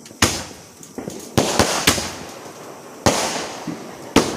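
Aerial fireworks bursting: about five sharp bangs at uneven intervals, each with a short fading tail.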